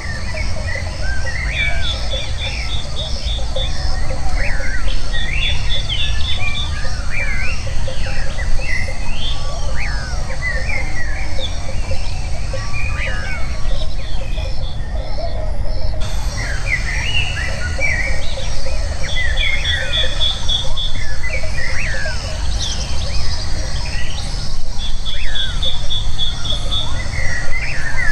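Birdsong: many short rising chirps and whistles from several birds, with a rapid trill that comes back every few seconds, over a steady low rumble.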